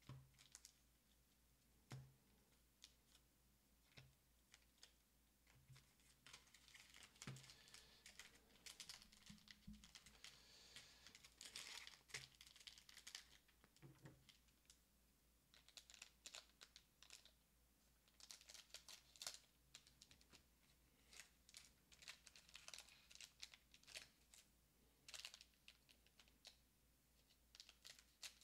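Faint irregular clicking, tapping and crinkling from trading cards and their plastic booster-pack wrappers being handled: cards slid and flicked against one another and wrappers rustling.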